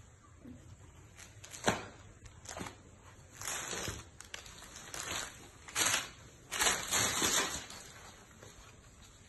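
Silk saree with a gold zari weave rustling in short, irregular bursts as it is unfolded and spread out by hand, with a sharp tick a little under two seconds in.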